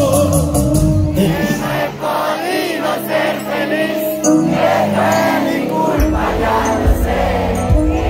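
Live vallenato band music with voices singing the melody. The bass and low drums drop out about a second in and come back in about six seconds in.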